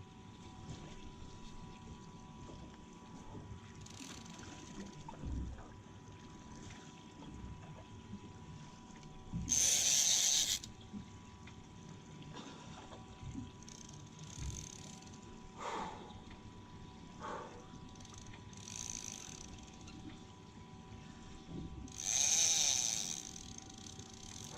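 Fishing reel being worked with a ratcheting click, over a faint steady hum. Two loud rushing noises of about a second each come about ten seconds in and near the end.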